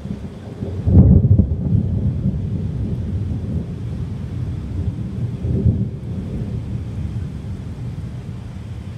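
Thunder in a heavy rainstorm: a low rumble that builds to its loudest about a second in, swells again near six seconds, and slowly dies away, with rain hissing faintly underneath.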